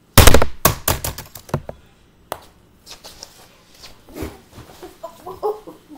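A rapid run of loud knocks and thumps on a hardwood floor close to the microphone, about six in the first second and a half, then scattered lighter knocks and clicks as someone moves about on the floor.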